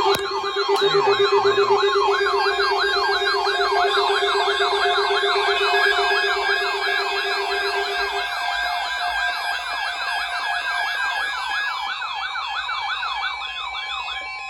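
Electronic sirens sounding in fast rising-and-falling sweeps, several overlapping, about three or four sweeps a second. Underneath is a steady low tone that cuts out about eight seconds in. The whole sound eases off slightly toward the end.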